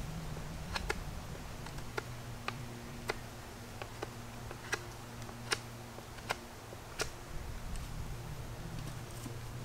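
A knife trimming a long green wooden pole, giving sharp single clicks and snaps of wood about once a second. A faint steady low hum runs underneath.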